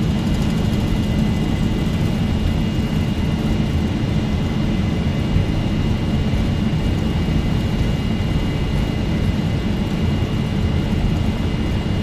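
Boeing 747-400 engines at takeoff thrust during the takeoff roll, heard inside the cockpit as a steady low rumble with a thin steady high tone over it.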